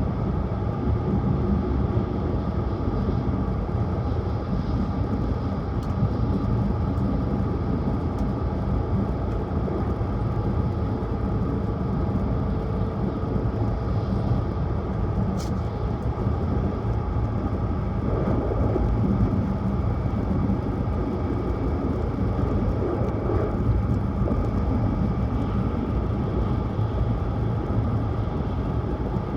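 Tohoku Shinkansen Hayabusa high-speed train running steadily, a continuous low rumble and hum of the train in motion heard from inside the passenger cabin.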